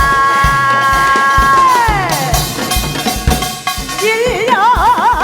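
Live Korean traditional (gugak) music: a long held melodic note that slides down about a second and a half in, then wavers with a wide, slow vibrato near the end, over steady drum beats.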